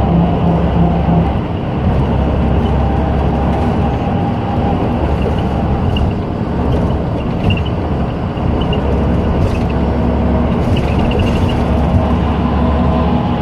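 Steady engine and road noise heard from inside a vehicle travelling at speed on a highway.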